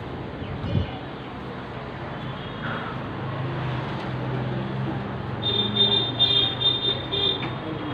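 Street traffic noise with a motor vehicle engine running steadily close by. A low thump comes under a second in, and a run of short, high-pitched ringing or beeping tones sounds for about two seconds in the second half.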